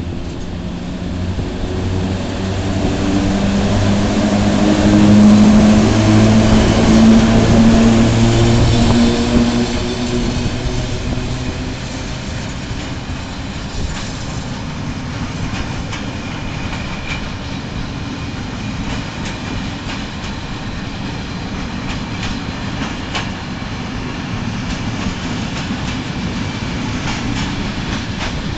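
FS class E655 electric locomotive hauling a freight train as it pulls away, its motors humming loudly as it passes during the first ten seconds or so. Then a long string of loaded open freight wagons rolls by, wheels rumbling and clicking over the rail joints.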